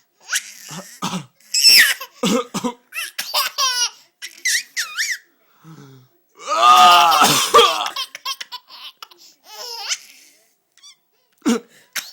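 A baby laughing hard in repeated high-pitched bursts, set off by a man's coughing between them.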